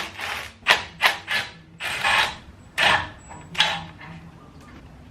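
A run of short scraping, clattering noises from tools and metal suspension parts being worked on during the strip-down of a truck's front steering knuckle. About seven rough bursts come roughly every half second and stop about four seconds in.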